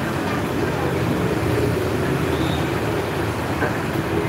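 Steady background noise of road traffic, an even rumble and hiss with no distinct events.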